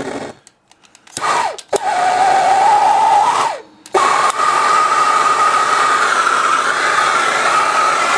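Handheld gas soldering torch being lit and burning: a click, then a steady hissing flame with a whistling tone; the flame cuts out briefly a little after three seconds and starts again about four seconds in, running steadily after that.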